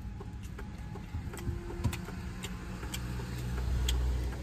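Low vehicle engine rumble that swells about three seconds in, with soft clicks of chewing and handling roast chicken.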